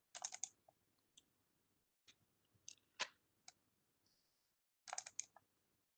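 Faint computer mouse clicks: a quick cluster at the start, a few single clicks in between, and another quick cluster near the end.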